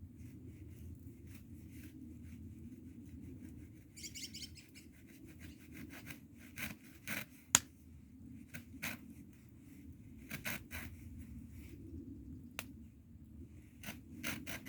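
Wood fire crackling and popping over a steady low rumble, with irregular sharp pops and one loud pop about halfway through.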